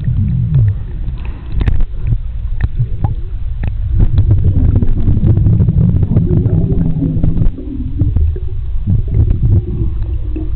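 Swimming-pool water heard from a microphone under the surface: a loud muffled low rumble and gurgling of water stirred by a swimmer's strokes, with many small clicks and knocks of bubbles and splashes.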